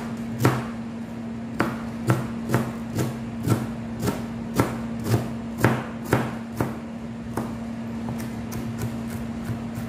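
Kitchen knife chopping cabbage on a plastic cutting board: sharp knocks about twice a second, lighter and quicker near the end. A steady low hum runs underneath.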